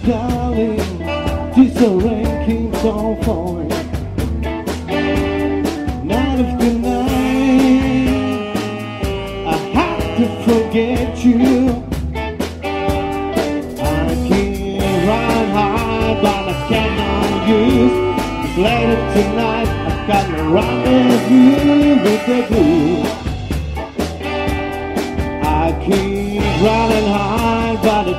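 Live blues band playing: a singer over electric guitar, bass guitar, keyboard, saxophone and a steady drum beat.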